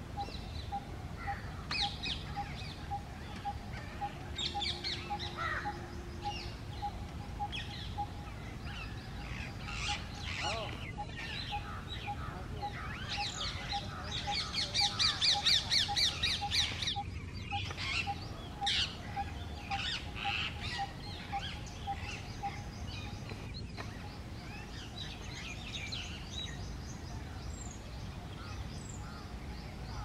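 Rose-ringed parakeets calling: short high-pitched screeches and chatter throughout, with a loud fast run of screeches about halfway through. A soft steady tick repeats a couple of times a second underneath.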